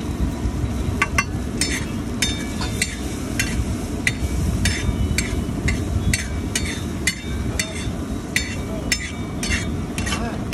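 Metal spatula tapping and scraping against a flat steel tawa as chickpea curry is mashed and stirred, sharp clicks about twice a second. A steady low rumble runs underneath.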